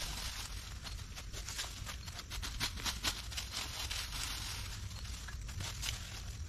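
Dry fallen leaves crackling and rustling as a person steps through them and handles debris: irregular light crunches and ticks, over a steady low rumble.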